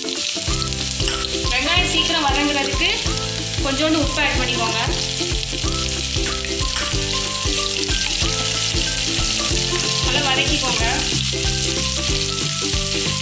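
Sliced onions sizzling in hot oil in a non-stick kadai, with a steady hiss, and stirred with a wooden spatula near the end. Background music with a bass line plays under it.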